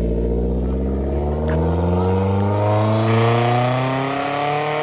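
Car engine accelerating with its muffler partly cut off, giving a louder exhaust note, its pitch climbing steadily as it pulls away.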